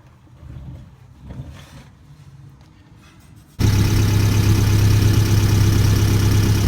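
Toyota MR2's 5S-FE four-cylinder engine idling with a strong low hum. It comes in suddenly about three and a half seconds in, after a few faint handling noises, and runs steadily from then on. The exhaust it is heard through has a leak, which the owner spots.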